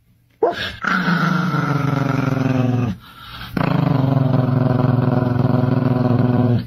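Small chihuahua growling: two long growls with a short break between them, the first sinking in pitch near its end.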